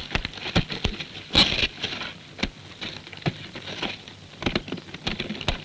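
Irregular knocks and scuffs of running feet on packed sand and of Malyutka anti-tank missile suitcases being set down and opened, the loudest knock about a second and a half in.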